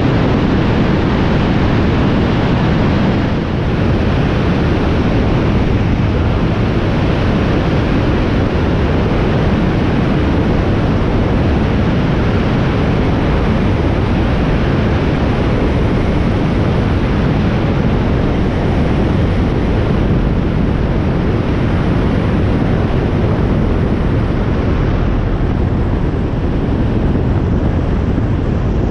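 Steady rush of wind over an externally mounted camera, mixed with the low running noise of the Europa light aircraft's engine and propeller, with a brief dip in level about three and a half seconds in.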